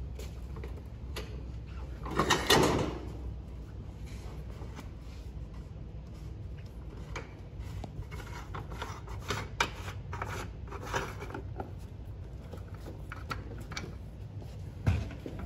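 Plastic and metal clicks and knocks from the steering column and steering wheel of a Cricket mini golf cart being handled and fitted, with a short rattle about two seconds in, a run of clicks in the middle and a dull thump near the end.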